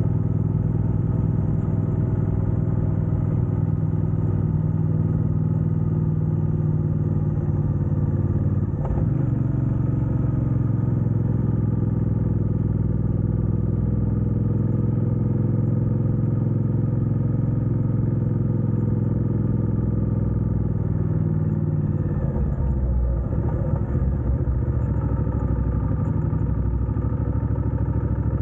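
Motorcycle engine running steadily under way. The pitch shifts briefly about nine seconds in, and the note changes again a little past the two-thirds mark.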